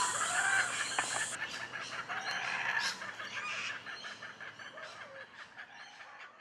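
Faint outdoor background with a few short, soft bird calls like clucking hens, fading out near the end.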